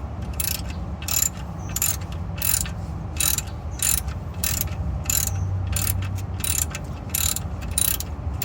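Socket ratchet wrench clicking in even, repeated strokes, about one and a half a second, as the oil drain plug is run in and tightened.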